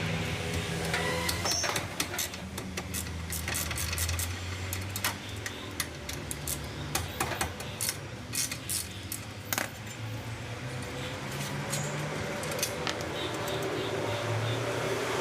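Metal hand tools clinking and clicking against car parts, many irregular sharp clinks over a steady low hum.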